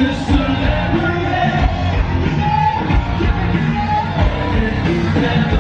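Loud live festival music with a vocalist singing over a strong bass beat, heard from inside the crowd on a stage sound system, with people yelling along.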